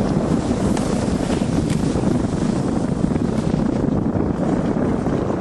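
Wind buffeting the camera's microphone during an open ski-lift ride, a steady low rumbling noise with no letup.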